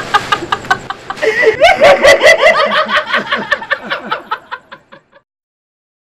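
A man laughing hard, a long run of quick repeated "ha-ha-ha" sounds, loudest around two seconds in and fading away by about five seconds.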